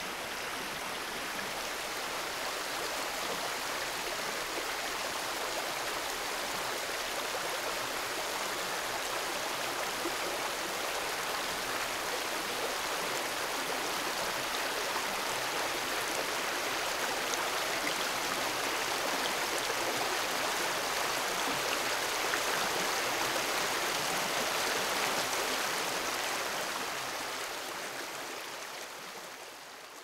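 Water of a small creek running steadily, a constant rush with no other events, fading away over the last few seconds.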